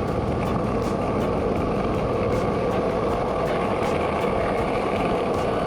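Rented motorbike running on the move, a steady engine and road noise without change.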